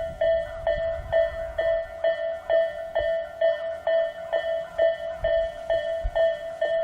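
Japanese level-crossing alarm of the Isesaki type, an electronic bell tone struck over and over at about two strokes a second, modest in volume. A low rumble underneath fades out about a second and a half in.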